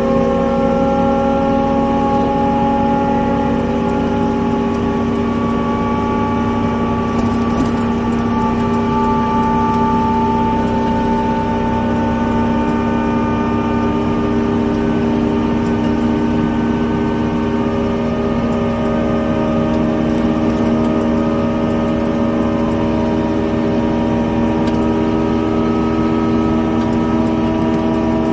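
Excavator's diesel engine running steadily as the machine drives along a road, heard from inside the cab: a constant hum of several tones that drift slowly up and down in pitch.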